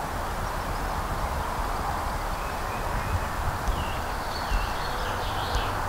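Outdoor ambience: a steady hiss with irregular low wind rumble on the microphone, and small birds chirping faintly from about two and a half seconds in.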